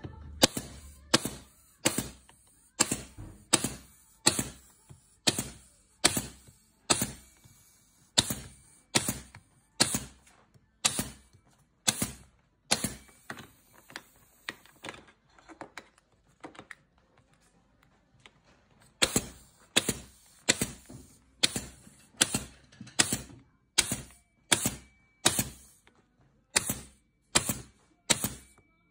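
Nail gun firing in a steady run of sharp shots, about one every three quarters of a second, driving nails through the metal ferrules of paint brushes into their wooden handles. The shots stop for about four seconds midway, then resume at the same pace.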